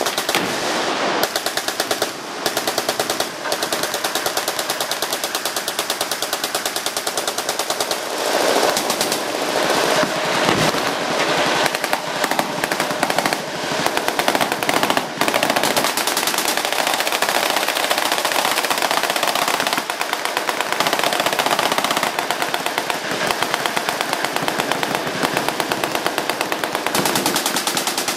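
Machine guns firing in sustained automatic fire, a near-continuous stream of shots with only brief dips.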